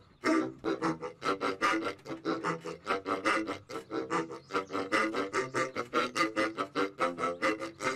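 Background music with a fast, even beat of about five notes a second.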